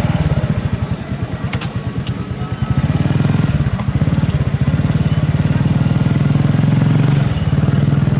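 A small engine running steadily with a fast, even pulse, getting louder about three seconds in.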